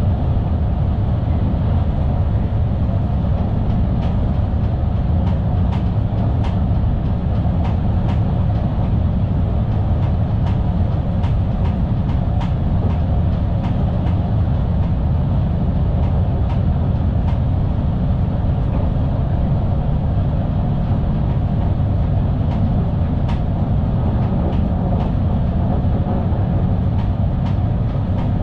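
Sprinter New Generation (SNG) electric multiple unit running at speed, heard from the driver's cab: a steady low rumble with scattered light clicks from the wheels on the track.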